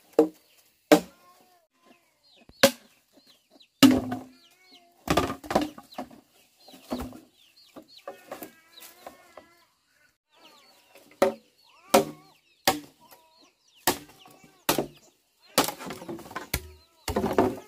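Sharp knocks on wood, struck about fifteen times at an uneven pace. Between the blows, chickens cluck and chicks cheep.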